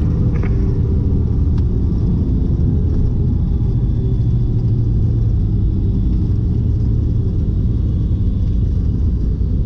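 Piper Seneca V's twin turbocharged six-cylinder piston engines and propellers running steadily, a loud low drone heard inside the cockpit while rolling on the runway.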